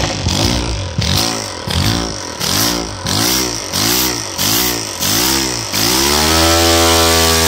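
Compressed-air Lego Technic single-cylinder engine running with a buzz and a hiss of air, revving up and dropping back in short surges about twice a second as the air is fed through a blow gun in bursts. Near the end it runs up into one longer rev that rises and falls away.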